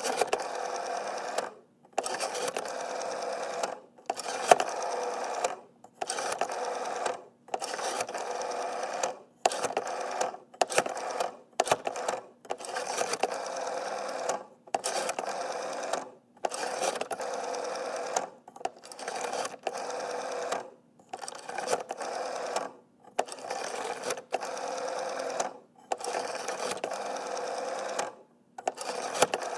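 Rotary telephone dial being dialed over and over: each digit is a whirring, clicking spin of the dial as it runs back, lasting from about half a second to a second and a half, with brief pauses between digits.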